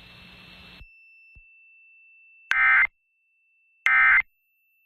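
Emergency Alert System SAME digital data tones: two short, identical buzzy bursts about 1.4 seconds apart, the End of Message code that closes the alert. A little radio hiss cuts off in the first second.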